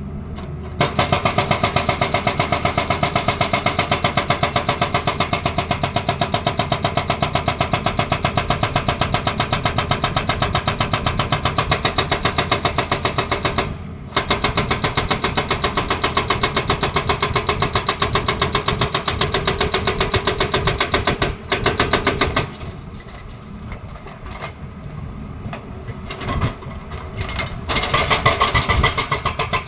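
Hydraulic rock breaker on a Tata Hitachi excavator hammering in rapid, even blows, stopping briefly twice. The blows drop away for several seconds, leaving the quieter machine running, then pick up again near the end.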